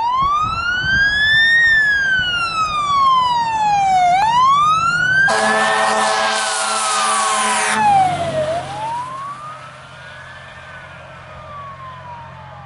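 Fire engine siren on a slow wail, its pitch rising and falling about every four seconds. A single long horn blast of about two and a half seconds cuts in near the middle. After the horn the siren grows fainter over a low, steady engine drone as the truck passes and moves away.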